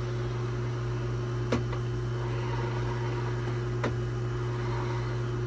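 Steady low machine hum, like a fan or air-conditioning unit running, with two faint clicks about two seconds apart.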